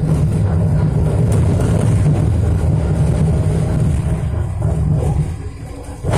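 Melbourne E-class tram running along the track, heard from inside the cabin: a loud, steady low rumble of wheels and running gear, easing slightly just before the end.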